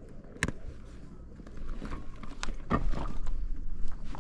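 Scattered sharp clicks and knocks with low water and handling noise on a stand-up paddle board being paddled. One click about half a second in, and a cluster of louder knocks a little before three seconds in.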